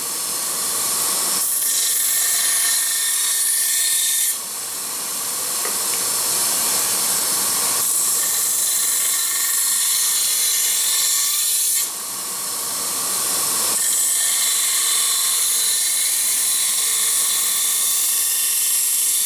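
Small vertical belt sander running, its abrasive belt grinding the rusty carbon-steel tang of an old chef's knife in a steady hiss, with sudden breaks about 4 and 12 seconds in.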